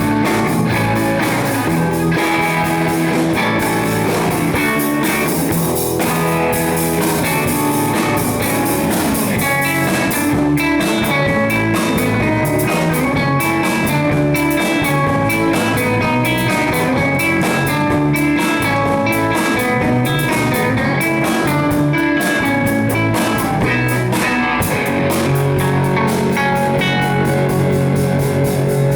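A band playing loud blues-rock with guitars and a drum kit, the drums and cymbals keeping a busy beat under the guitar lines.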